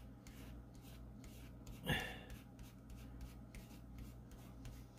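Damp cloth rag rubbing over an embossed plastic glass-block sheet, wiping wet paint off its raised faces: faint, scratchy strokes. A brief louder sound about two seconds in.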